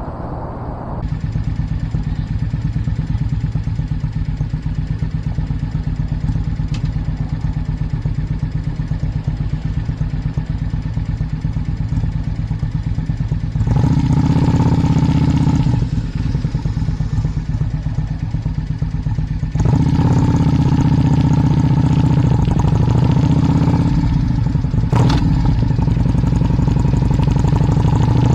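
A vehicle engine running continuously on the move, with a steady rush of noise over it. It gets louder in two steps, about halfway through and again about two-thirds of the way in. A single sharp click comes near the end.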